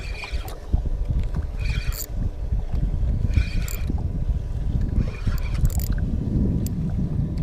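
Wind rumbling on the microphone and water gurgling against a small boat's hull, with a short high sound recurring roughly every two seconds.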